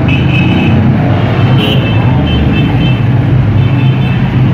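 Steady din of road traffic: a constant low engine hum, with short high-pitched tones coming and going.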